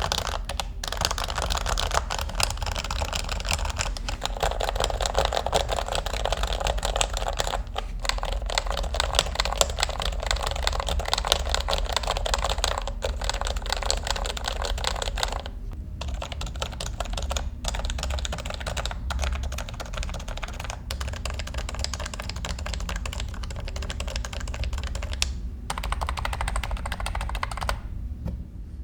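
Fast, continuous typing on a Topre Realforce 87UW keyboard with electrostatic capacitive switches. A dense stream of keystrokes is broken by a few brief pauses and stops just before the end.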